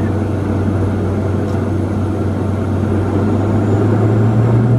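Let L-410 Turbolet's twin turboprops heard from inside the cockpit: a steady low propeller drone that steps up in pitch and grows a little louder about four seconds in, as power comes up for the take-off.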